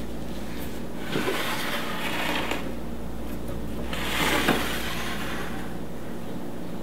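Metal cases of two rack-mount units scraping and sliding on a stone countertop as they are turned around by hand. There are two rubbing swells, about a second in and again about four seconds in, over a steady low hum.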